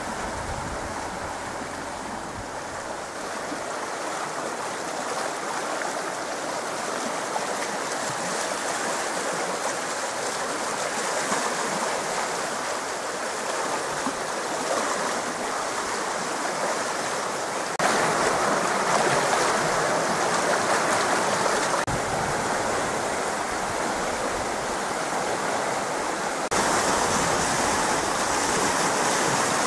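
Small creek in flood after heavy rain, its muddy water rushing fast and turbulent in a steady wash of noise. It gets suddenly louder about eighteen seconds in and again near the end.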